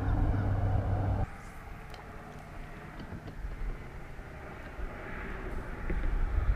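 A steady low engine hum that cuts off abruptly about a second in, leaving a quieter background with a few light clicks; a low rumble rises again near the end.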